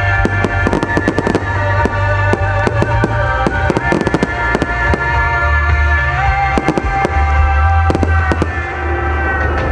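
Fireworks display: aerial shells bursting in many sharp bangs, thick and fast for most of the time and thinning out near the end. Loud music with long held tones and a heavy bass plays under the bangs.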